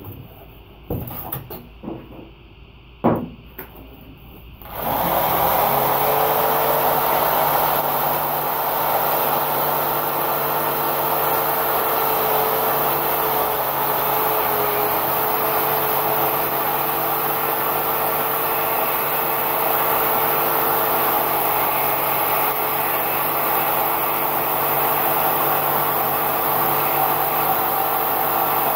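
Handling knocks as a block of blue rigid foam is shifted, with one sharp knock; then, about five seconds in, an electric jigsaw starts and runs steadily, its blade shaving into the foam.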